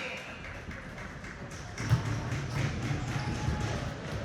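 Scattered light taps and knocks of sticks and feet on an arena floor, with a sharper thump about two seconds in and a low murmur from about then on.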